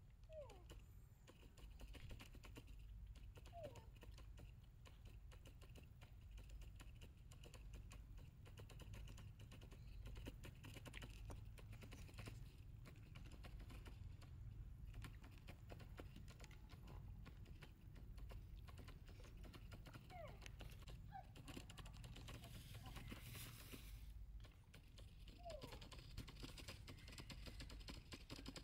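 Near silence: a faint low rumble with light clicking throughout and a few brief, faint falling chirps.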